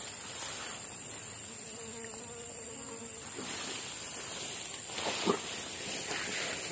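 Outdoor insects: a steady high-pitched drone from singing insects, with a flying insect buzzing past about two seconds in for a second or so. A short rustle and tap come about five seconds in.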